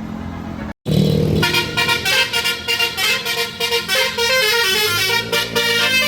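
Tour bus's basuri horn, a loudspeaker horn that plays tunes, running through a fast melody of many quick notes. The sound cuts out briefly just under a second in, then the tune starts, with the bus's low engine hum underneath toward the end.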